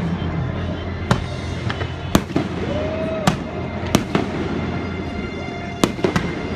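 Aerial fireworks shells bursting: a string of sharp bangs, roughly one a second with a quick cluster near the end, over music playing underneath.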